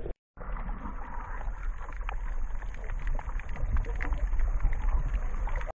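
Sound picked up by an action camera underwater while snorkeling: a low, muffled water rumble with scattered crackling clicks and a faint steady high whine. It starts after a split-second gap.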